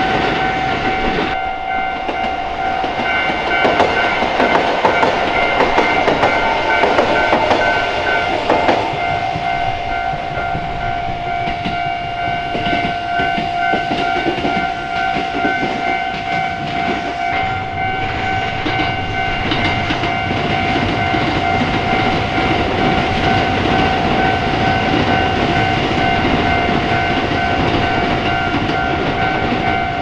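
Japanese level-crossing warning bell ringing steadily while trains pass over the crossing, with wheels clattering on the rails. The train noise is loudest from about four to nine seconds in.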